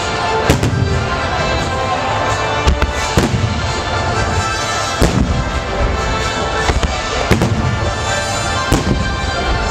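Starmine fireworks barrage: shells bursting in rapid, irregular succession, the bangs echoing, over music played across the display site.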